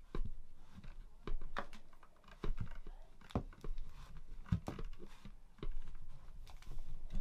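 Irregular light clicks and knocks, about one or two a second, from a handheld camera being handled.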